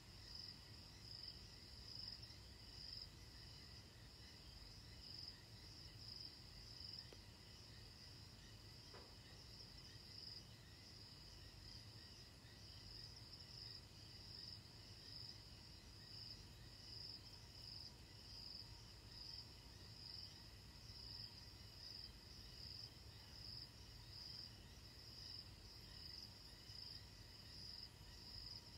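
A steady chorus of night insects trilling at a high pitch, with a faint low rumble underneath.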